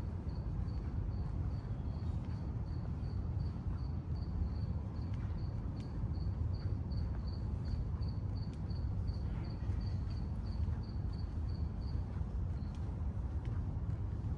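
A cricket chirping at an even rate, about three chirps a second, stopping about twelve seconds in, over a steady low rumble of city ambience.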